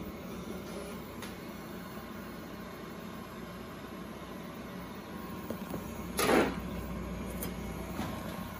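Steady electrical hum and hiss of powered laparoscopy equipment running. A short rustling noise comes about six seconds in.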